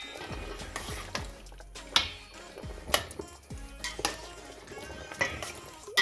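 Metal slotted spoon stirring peppers and garlic through hot liquid in a stainless steel pot, clinking and scraping against the pot about once a second.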